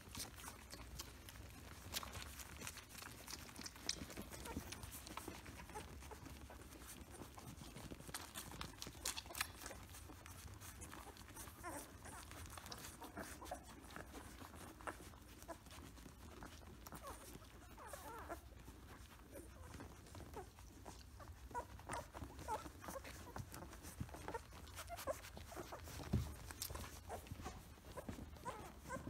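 About two-week-old Samoyed puppies nursing, with faint high squeaks and grunts scattered throughout and more of them in the second half. Soft suckling and rustling clicks run under them.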